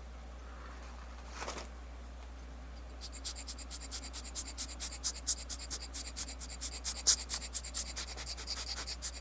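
Small metal watch parts being worked by hand: a single click, then from about three seconds in a fast run of sharp scratchy clicks, several a second.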